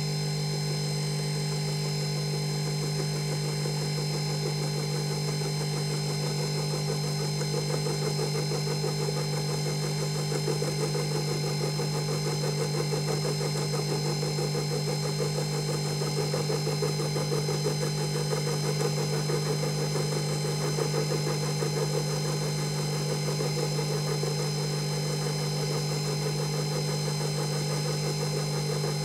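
Emco Unimat 3 mini mill running steadily with a steady motor hum and whine, its end mill taking a light facing cut across an aluminium casting as the table is fed slowly by hand. The cutting noise grows a little louder several seconds in.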